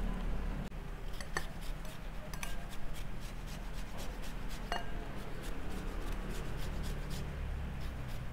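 Lemon being zested on a stainless steel rasp grater: repeated short scraping strokes as the peel is rubbed along the blade, with a few light clinks where the grater touches the glass bowl.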